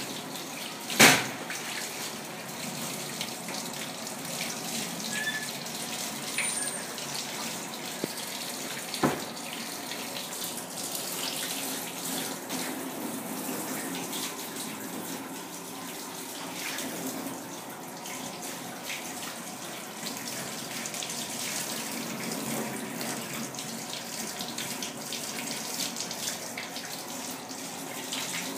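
Tap water running steadily into a stainless steel sink, splashing over a kitten held under the stream. A sharp knock comes about a second in, and a smaller one about nine seconds in.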